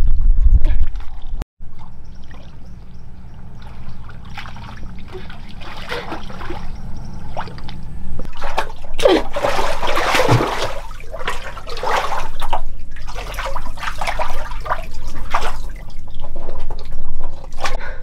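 Water trickling and splashing, the splashes getting louder and more frequent from about halfway through.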